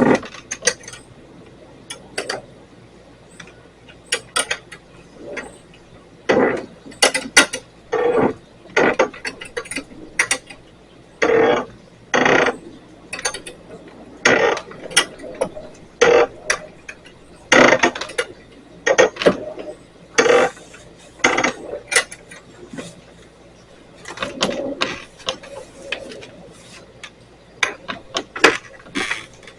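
A steel turnbuckle being turned under load, creaking and squeaking in a run of short, irregular strokes about once a second as it pulls tension on the fence and raises it.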